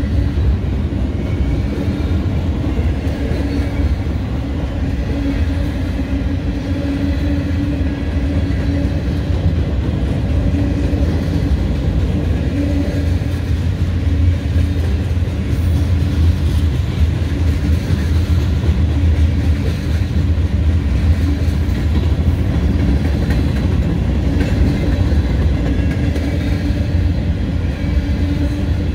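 Cars of a Norfolk Southern mixed freight train (tank cars, intermodal well cars, boxcars and covered hoppers) rolling past: a steady rumble of steel wheels on the rails.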